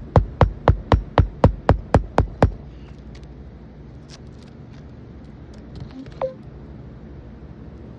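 Hand hammer driving a nail into a roofing shingle: about ten quick, even strikes, roughly four a second, that stop after two and a half seconds. One lighter tap follows about six seconds in.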